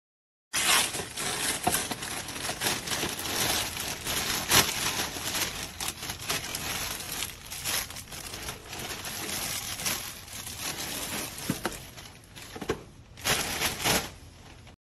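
Plastic mailer bag and packing material crinkling and rustling as a parcel is unwrapped by hand, with scattered sharp crackles and a few louder bursts of rustling near the end.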